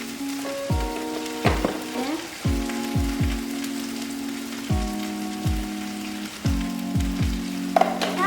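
Broccoli sizzling in hot oil in a frying pan, a steady hiss. Background music plays over it, with sustained chords and a deep, falling bass-drum beat.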